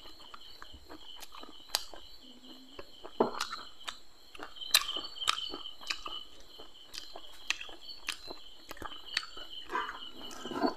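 Close-up eating sounds, sharp clicks and smacks of chewing fried fish eaten by hand, over a steady, evenly pulsing high chirping of insects.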